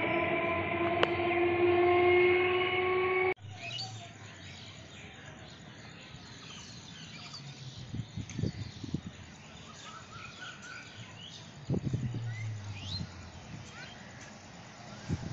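12-coach EMU local train pulling away, its traction motors whining as a cluster of tones that rise slowly in pitch as it gathers speed. About three seconds in, the sound cuts off suddenly to a much quieter open-air background with birds chirping and a few low rumbles.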